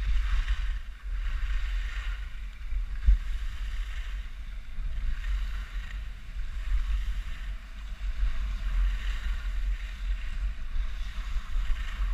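Skis scraping and hissing over groomed snow on a downhill run, swelling and fading every couple of seconds with the turns, over a steady rumble of wind buffeting the microphone. One sharp knock about three seconds in.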